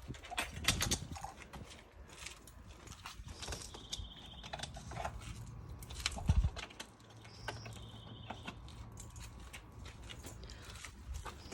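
Clicks, knocks and rattles of quick-release mounts for a vehicle-mounted shower suite and canopy being worked by hand, with a heavier thud about six seconds in.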